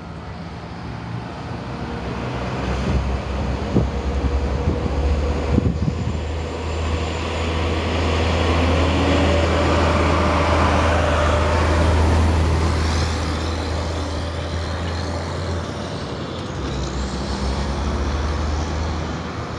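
Diesel locomotive of an MBTA commuter train running with a steady low engine drone. A broad rushing train noise swells to its loudest about ten seconds in, then eases.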